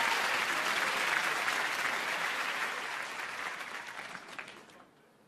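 Theatre audience applauding, the clapping fading away over the last couple of seconds.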